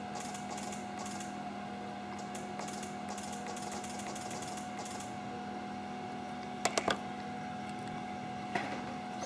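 Steady low hum with faint handling rustle, then three quick sharp clicks close together about two-thirds of the way through and a single click near the end, as plastic test probes are set down on a wooden desk.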